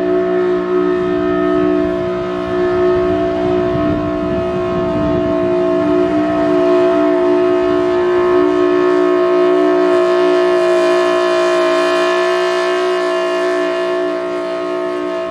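Thunderbolt 1003 outdoor warning siren sounding a steady, unchanging multi-tone chord at full speed. The siren is described as quite sick, long in poor condition but still working.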